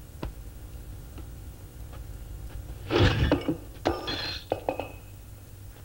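A sudden thud with a clatter about three seconds in, followed by a brief clinking, ringing rattle, over a low steady hum and a few faint clicks.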